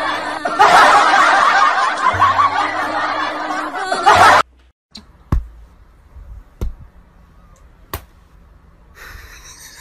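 Canned laughter, snickering and chuckling, over background music; it cuts off abruptly about four seconds in. After that, a few faint short knocks.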